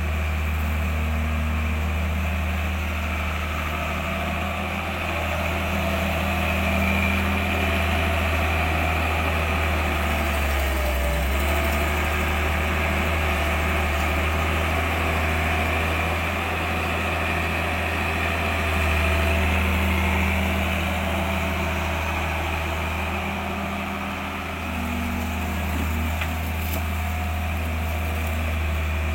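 A steady low machine hum, engine-like, running unchanged throughout.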